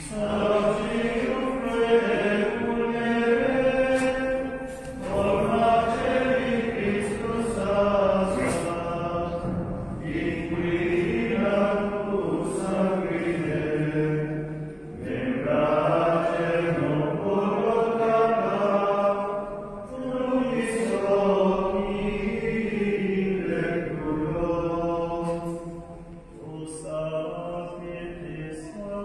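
A Franciscan choir singing a slow liturgical chant, in phrases about five seconds long with short breaks between them.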